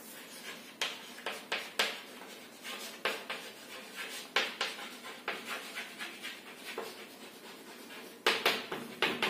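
Chalk writing on a chalkboard: a run of short, irregular scratches and taps as letters are written, with a few louder strokes near the end.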